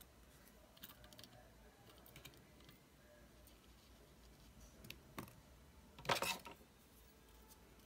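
Small scattered clicks and scrapes of a precision screwdriver and fingers on a camera's metal lens-shutter ring, with a louder half-second rattle of handling about six seconds in.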